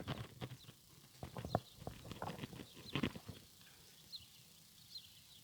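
Horse's hooves stepping on the ground: a scatter of short, irregular knocks through the first few seconds, then only a few faint ticks.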